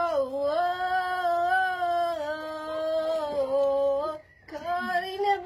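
Girls singing one long, slightly wavering held note, breaking off about four seconds in and starting another phrase after a short pause.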